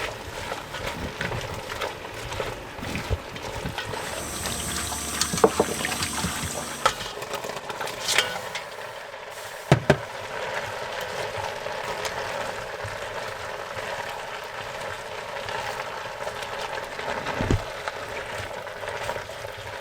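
Kitchen work sounds: a few seconds of water pouring or running, then a steady sizzle of chopped carrots and onions cooking in a pot, with a few sharp knocks and clinks of utensils.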